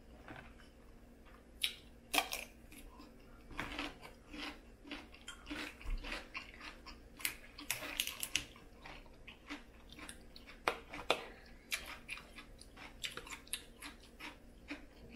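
Cajun-style crawfish being eaten by hand: irregular small cracks and clicks of shells being broken and peeled, with close-up chewing.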